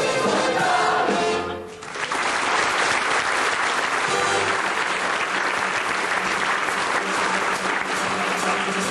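Musical-theatre orchestra and singers ending a number, the music cutting off about a second and a half in. A theatre audience then breaks into sustained applause.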